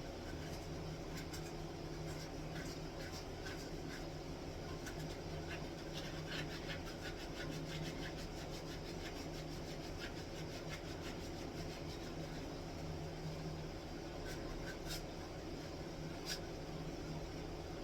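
Wood being hand-sanded with sandpaper: many short scratchy strokes, thickest in the middle, over a steady low hum.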